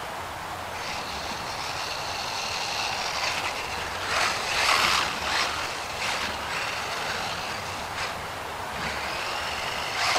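Brushless motor and drivetrain of a DEERC 300e 1/18-scale RC monster truck whining as it is driven, the high whine rising and falling in pitch with the throttle, loudest about four to five seconds in.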